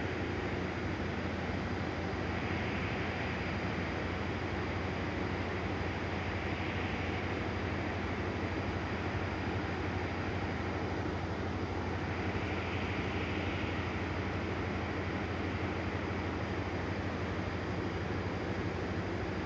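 Steady low machinery drone of a power plant, with a constant thin high whine above it and a hiss that swells and fades three times.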